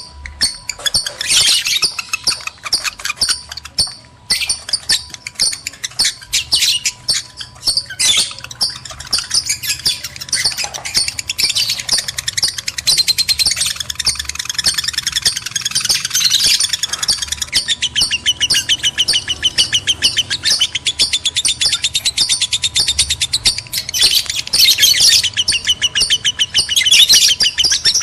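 Lovebirds chattering in long, unbroken runs of very rapid, high, shrill chirps and trills: the excited calling of lovebirds in breeding condition, used as a lure recording to stir other lovebirds.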